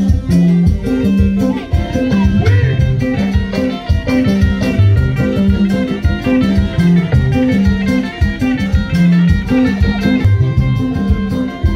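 Music with plucked guitar lines and a low bass line over a steady beat.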